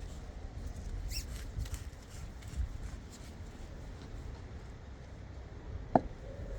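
Workshop handling noises from reassembling a motorcycle fork: faint squeaks and rustling, then one sharp click near the end.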